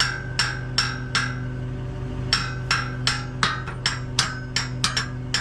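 Hammer tapping a metal pin in, in a steady run of about three strikes a second, each blow ringing briefly; the tapping pauses for about a second partway through, then resumes.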